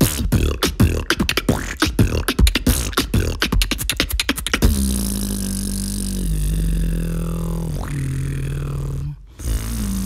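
A beatboxer's mouth percussion: a fast, dense run of sharp clicks and beats for about the first four and a half seconds, then a long held bass note that steps down in pitch. The note breaks off briefly near the end, and a wavering note starts.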